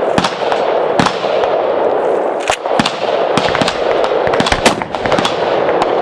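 Gunfire: many sharp shots at irregular intervals over a steady rushing noise, the loudest a little past the middle.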